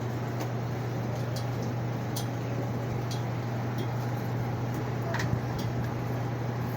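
Panasonic fully automatic washing machine running: a steady low hum over a noisy whoosh, with a few faint clicks.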